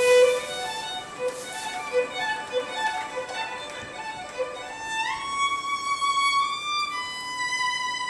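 Solo violin playing a melody of short notes, then sliding up into long held high notes about five seconds in.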